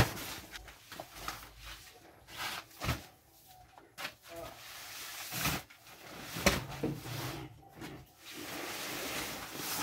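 Heavy sacks of cement being dropped one by one onto a stack, each landing with a dull thud and a scrape of sack against sack.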